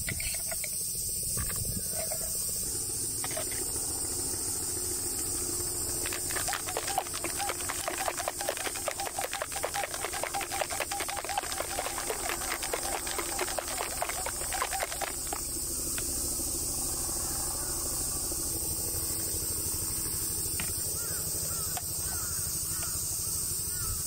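Ice rattling hard and fast in a stainless steel cocktail shaker, shaken for about nine seconds starting about a quarter of the way in. A steady high insect buzz runs underneath.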